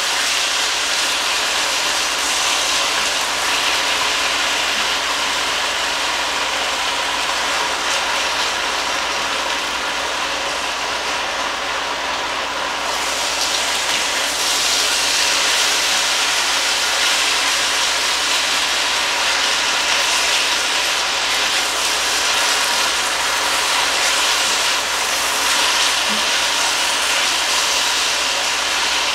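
Thin strips of beef sizzling steadily in a hot pot as they are stirred and turned, the sizzle growing a little brighter about halfway through.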